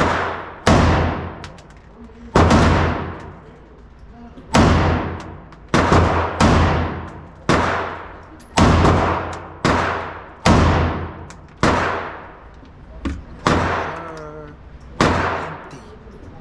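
Gunshots fired one after another at an uneven pace, about a dozen in all, roughly one a second. Each crack has a long echoing tail.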